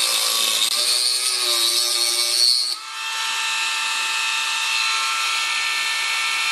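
Dremel rotary tool with a cut-off disc cutting into a plastic dash bezel. Its whine wavers in pitch as the disc bites, then about three seconds in, after a brief dip, it settles into a steady, even whine.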